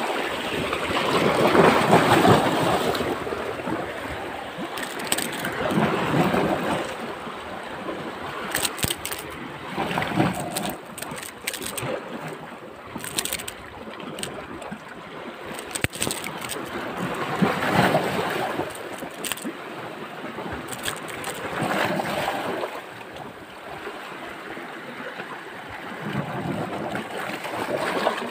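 Sea surf washing against the rocks in swells that rise and fall every few seconds, with a few light clicks in the middle.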